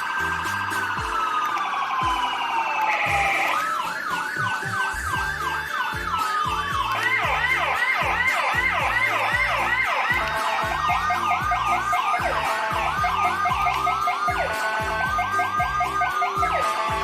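Electronic siren playing Whelen-style dual-tone sounds, two siren tones sounding together. Slow rising and falling wail glides give way a few seconds in to fast, repeated yelp sweeps, and a slow wail rises again near the end. Background music with a steady low beat plays under it.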